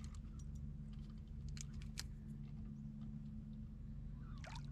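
A hooked fish is reeled in beside a canoe: scattered light clicks of rod and reel handling and small splashes at the surface, over a low steady rumble, with a short wavering squeak near the end.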